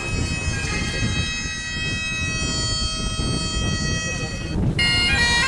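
Bagpipe music: steady drones and a held note, then near the end the chanter breaks into a melody with quick ornamented note changes. A low rumble runs underneath.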